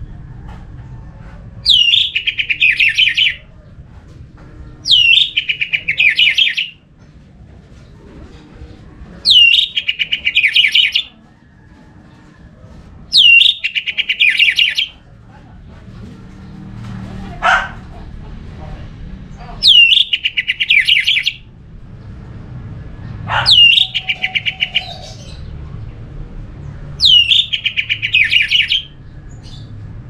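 Orange-headed thrush singing the same short phrase seven times, one every three to four seconds. Each phrase is a high falling note running into a quick string of repeated notes, about a second and a half long. Twice between phrases there is a brief sharp note.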